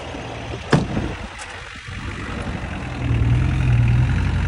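Engines of the semi truck and the truck-mounted forklift running, with a sharp click about a second in. The engine sound grows louder and steadier about three seconds in.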